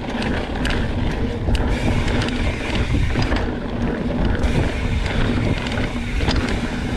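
Mountain bike descending a rough trail at speed: wind rushing over the camera microphone, with the rumble of the tyres and short rattles and knocks of the bike over rocks and roots.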